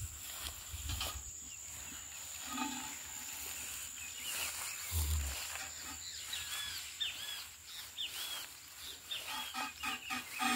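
Hand milking into a steel pail: milk squirting from the cow's teat in quick rhythmic spurts, about three a second, that ring on the metal, starting near the end. Earlier there is one low thump and a few short bird chirps.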